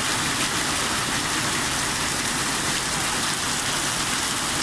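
Heavy rain mixed with hail falling on the road and roofs, a dense, steady hiss with no let-up.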